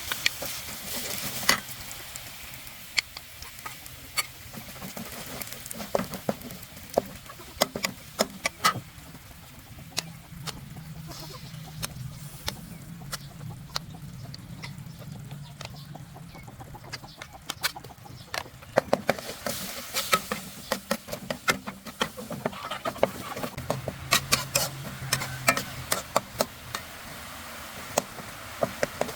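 Chickens clucking, mixed with scattered sharp clicks and knocks of cooking utensils.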